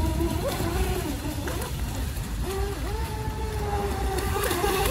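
Radio-controlled speedboat's motor running at speed, a steady whine that briefly dips in pitch about a second and a half in and again near the three-second mark as the throttle changes.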